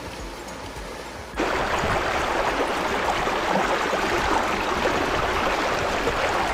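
Flowing river water, a steady rushing; about a second and a half in it becomes abruptly louder and stays so.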